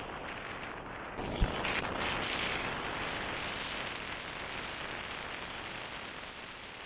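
Riding noise on a 1974 Triumph Trophy 500cc parallel-twin motorcycle: a steady rush of wind and running noise with no clear engine note. A single thump comes about a second and a half in, and the rush grows louder and then slowly fades.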